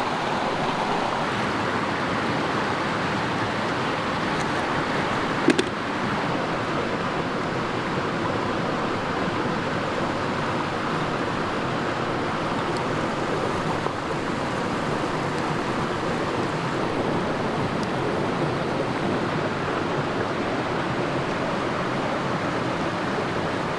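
Rushing mountain creek with cascades, a steady, even rush of flowing water. A single brief click about five seconds in.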